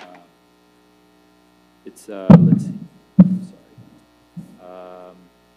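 Papers being handled right at a table microphone, with two loud knocks about a second apart as the microphone or table is bumped, over a steady electrical mains hum from the sound system. A short, steady hummed tone near the end.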